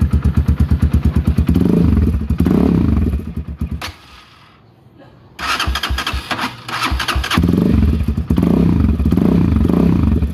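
Rusi Sigma 250 motorcycle engine through an open LeoVince aftermarket muffler with its silencer removed, idling with a pulsing beat and blipped twice. It cuts out about four seconds in and is started again a second or so later, then revved in several quick blips.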